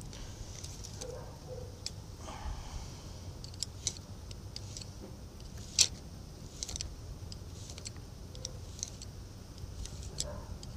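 Scattered small metallic clicks and clinks as a thin hand tool works at the locking jam nut on a truck's rear axle hub, with one sharper, louder click a little past halfway, over a low steady background rumble.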